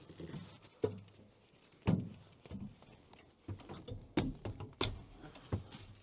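Knocks and thumps of someone opening the door of an all-terrain vehicle and climbing into its cabin. The loudest thud comes about two seconds in, with several more knocks after it.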